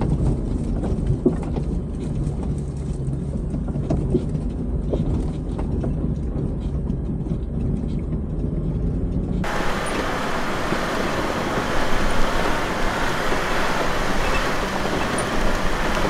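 Off-road vehicle's engine droning inside the cab on a rough gravel track, with scattered knocks and rattles from the bumpy ride. About nine and a half seconds in, the sound switches abruptly to a steady rushing noise, as of tyres on gravel and wind.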